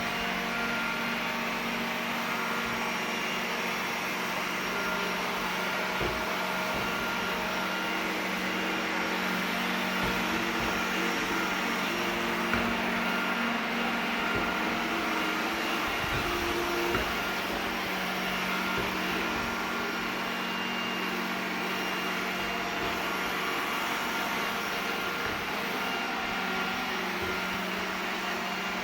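iRobot Roomba 980 robot vacuum running, a steady hum and hiss from its suction motor and brushes, with a few faint knocks now and then.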